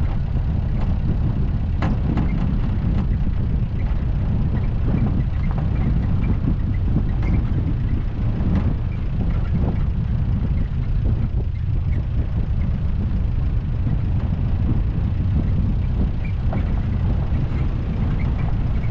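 Steady low rumble of a car driving, engine and tyre noise on the road, with scattered small clicks and knocks.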